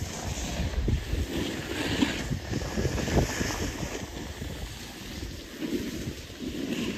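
Wind buffeting the microphone while skiing downhill, with the hiss and scrape of skis sliding over slushy snow. The rumble comes in uneven gusts, strongest in the first half.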